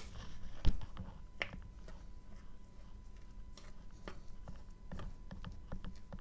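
Scattered taps and clicks of hands working a bowl of wet clay paste while powdered clay is added and mixed in, with one heavy thump just under a second in.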